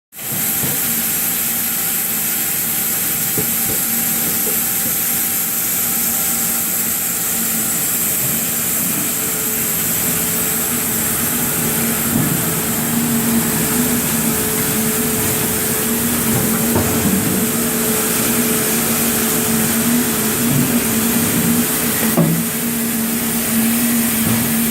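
Sawmill machinery running steadily: a constant hum under a strong high hiss, with a few faint knocks and clatters in the second half.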